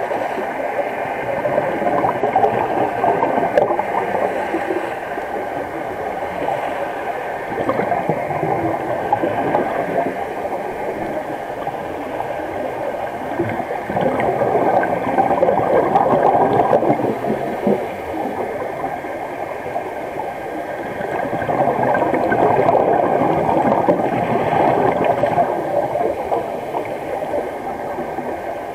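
Underwater gurgling and bubbling of a scuba diver's exhaled air rising past an underwater camera, swelling in long surges a few seconds each, loudest about halfway through and again about three quarters of the way in.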